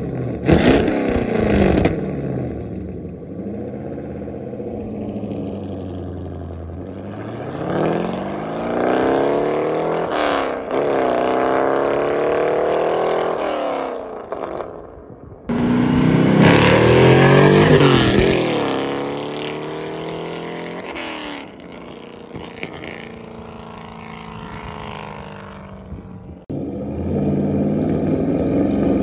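Straight-piped 1992 C4 Corvette V8, with no catalytic converters or mufflers, revving briefly. It then pulls away with the pitch rising and falling through the gears, gets loud again as it comes back, and sits idling steadily near the end.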